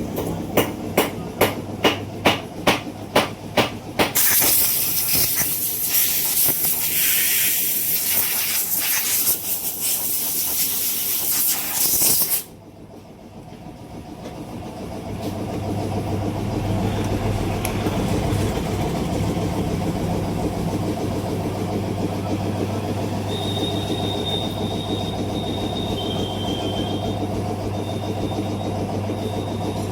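Sharp taps, about two a second, then a loud steady hiss that cuts off suddenly, leaving a steady low hum with a few short high beeps near the end.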